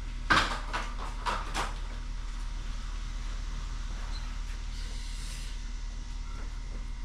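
Four sharp knocks or clatters in the first two seconds, then a steady low hum.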